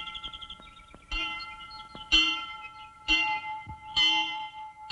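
A bell striking about once a second, starting about a second in, each stroke ringing on into the next over sustained orchestral tones. A fading bird-like trill is heard in the first half-second.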